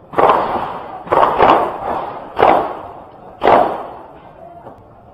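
Five gunshots from other shooters on the range, at uneven intervals in the first three and a half seconds, each one echoing briefly.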